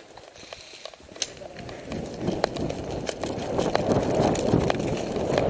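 Footsteps of a person running over rough ground with rustling, starting about a second in and growing louder, with many irregular sharp cracks and clicks.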